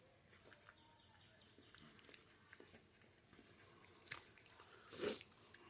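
Faint sounds of a person chewing a stuffed cabbage roll, small mouth clicks, with two louder short mouth noises about four and five seconds in.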